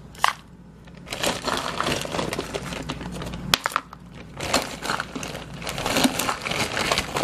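Frozen mixed berries tipped out of a crinkling plastic bag, clattering into plastic containers: one sharp click near the start, then from about a second in a run of crackling rustle and scattered clicks.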